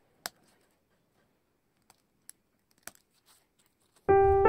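Thin wooden craft sticks being cut with a blade and laid down on a cutting mat: one sharp click, then three faint clicks. Piano music comes in near the end.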